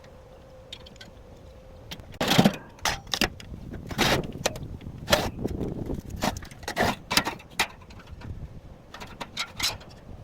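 Irregular metallic clanks and clinks of steel parts being handled and knocked together, with a few louder hits near the start and middle.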